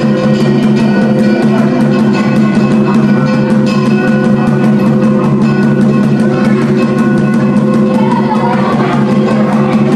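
Loud ritual music with drums and percussion: steady held low tones under dense, rapid strokes.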